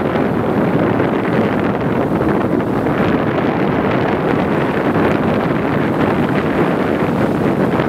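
Steady wind noise on the microphone, with the engines of racing powerboats running at speed out on the water underneath it.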